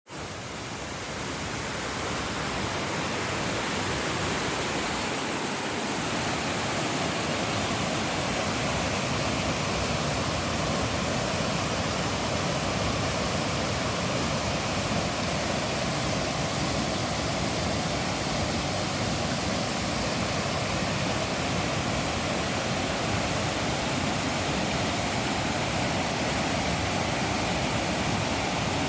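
Rushing water running steadily, a dense even rush that fades in over the first couple of seconds.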